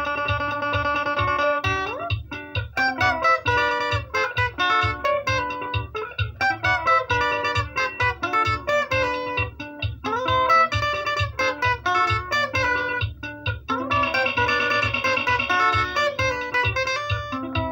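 Guitar solo: a quick melodic lead line of plucked notes with slides, over a steady low bass pulse. A chord rings out for a couple of seconds near the end.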